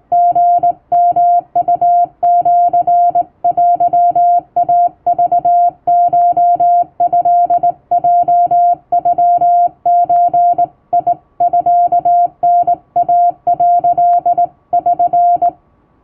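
Hand-keyed Japanese (Wabun) Morse code: a single steady beep tone switched on and off in short dots and longer dashes, in uneven groups with short gaps. It stops shortly before the end.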